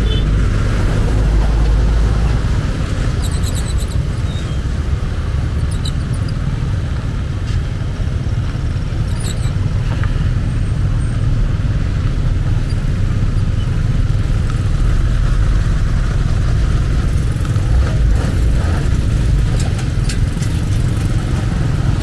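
Steady low rumble of motor vehicles on the road, with a few short clicks and rattles.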